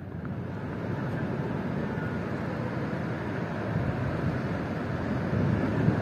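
Wind buffeting the microphone, a steady rumble that grows a little louder toward the end.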